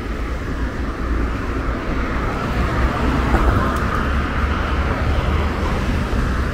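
Street traffic noise: a steady hum of cars on a city street, swelling a little about halfway through as a vehicle passes.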